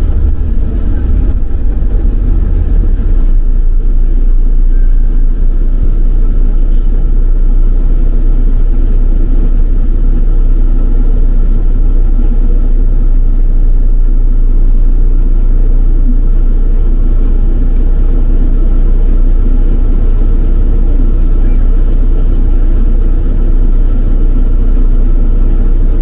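City bus driving along a road, its engine and tyres making a steady low rumble heard from inside the bus.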